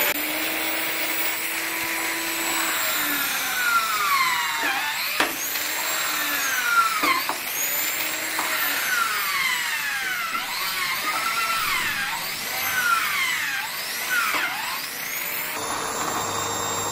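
Hand drill with its universal motor converted to permanent-magnet DC, run from a 59 V DC e-bike charger, drilling into wood. The motor whine repeatedly dips and climbs back in pitch.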